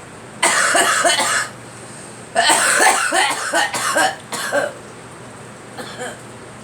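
A girl coughing in two fits: a short run of coughs about half a second in, then a longer run of coughs from about two and a half seconds, with one faint cough near the end.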